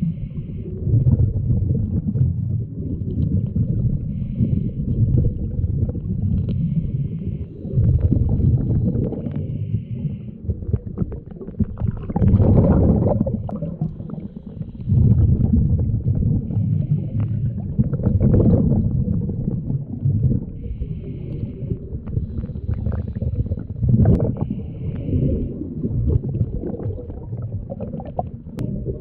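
Scuba diver's breathing heard underwater: exhaled bubbles from the regulator rumble and gurgle in swells every three or four seconds, with quieter breathing between them.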